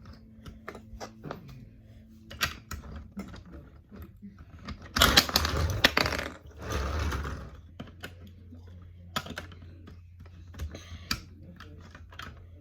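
Plastic LEGO bricks clicking and clattering as they are handled, in scattered sharp clicks. About five seconds in comes a louder rattling, rustling stretch of two to three seconds, like hands sorting through loose bricks.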